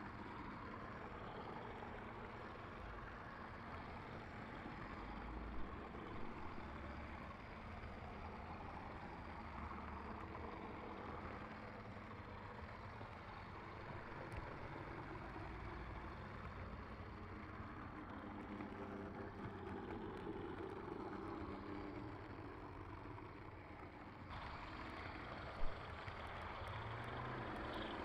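Model garden railway trains running along the track: a steady, low rumble of wheels on rails and motor hum. The sound changes abruptly a little before the end, and there is one sharp click shortly after.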